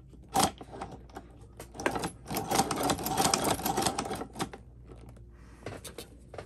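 Hand-cranked walking foot cobbler sewing machine stitching waxed leather: rapid clicking and clattering of its mechanism as the flywheel is turned. A single sharp click comes about half a second in, the densest run of clicks falls between about two and four and a half seconds in, and a few more clicks follow near the end.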